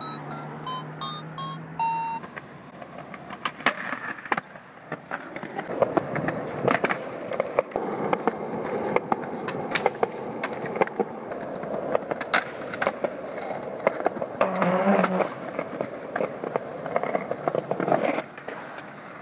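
A toy electronic keyboard plays a few short beeping notes for about two seconds. Then skateboard wheels roll on concrete and pavement, with sharp clacks and impacts from the board hitting ledges and ground, until shortly before the end.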